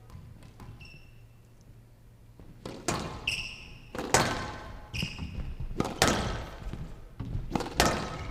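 Squash rally: sharp smacks of the ball struck by rackets and hitting the court walls, about once a second from about three seconds in, mixed with high squeaks of the players' shoes on the court floor.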